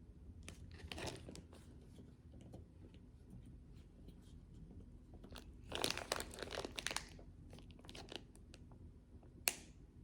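Faint crinkling and rustling of plastic packaging being handled, in two bursts about a second and six seconds in, with a single sharp click near the end.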